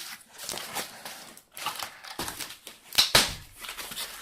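Packaging being handled and unpacked: irregular rustling and light clicks, with a couple of sharp knocks about three seconds in.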